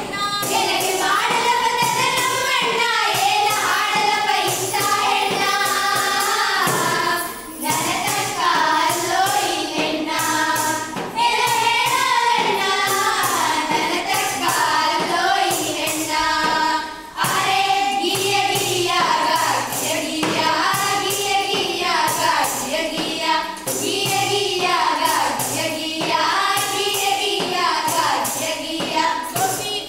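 A group of women singing a gigi pada folk song together, with a steady beat of taps on a handheld metal plate. The singing pauses briefly twice, about seven and seventeen seconds in.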